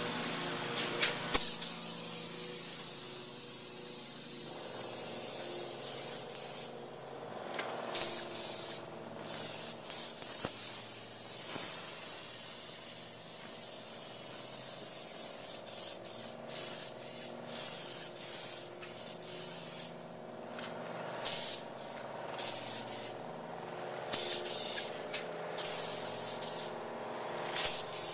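Polyurea spray gun hissing as coating is sprayed, in long spells broken by several short pauses when the trigger is let go, with a steady hum underneath.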